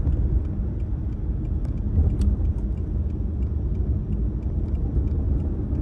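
Inside the cabin of a 2009 Pontiac G8 GXP driving along in third gear: a steady low rumble of the 6.2-litre LS3 V8 and tyre and road noise, with faint scattered ticks.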